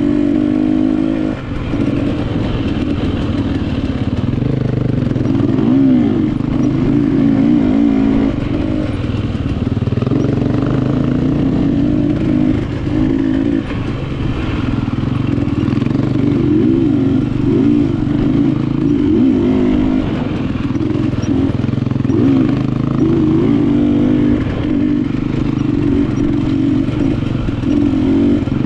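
KTM enduro dirt bike engine running hard on a trail ride, its pitch rising and falling constantly with the throttle. There are short dips in level about a second and a half in and around halfway.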